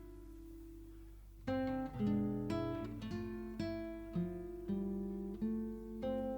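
Background music: plucked acoustic guitar. A single note fades for about the first second and a half, then a run of picked notes follows.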